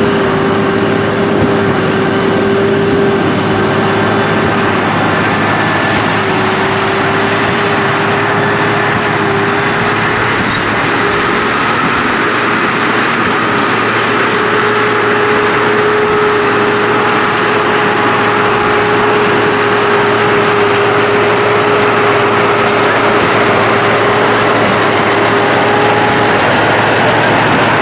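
Fendt Favorit 916 tractor and Krone BigPack 1270 XC large square baler running steadily while baling straw, with a steady whine through the machine noise.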